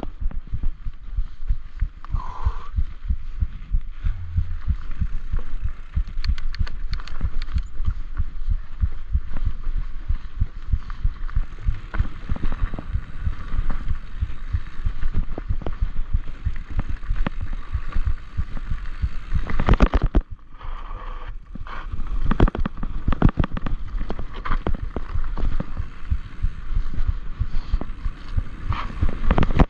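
Enduro mountain bike rattling and thudding over a rocky dirt trail at speed, a dense, uneven run of knocks from tyres, suspension and frame hitting stones. The loudest clatter comes about twenty seconds in, followed by a brief let-up.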